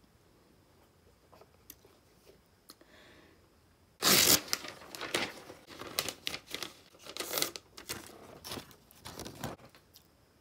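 A sheet of paper handled close to the microphone, crinkling and rustling in a quick run of crackles. It starts suddenly about four seconds in, loudest at the start, and dies away about a second before the end.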